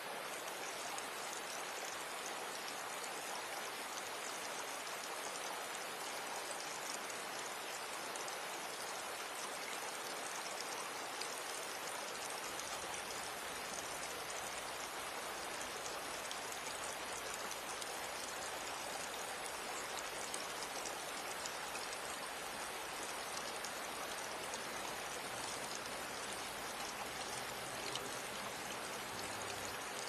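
Shallow water of a small stream running and splashing over rocks below a waterfall: a steady, even rush of water.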